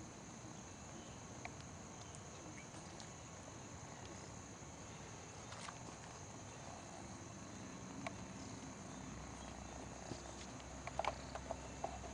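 Faint outdoor ambience with a steady, high-pitched insect drone, and a few light clicks and rustles near the end.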